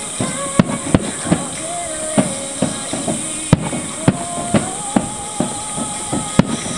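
Aerial firework shells bursting in quick, irregular succession, sharp bangs about two a second.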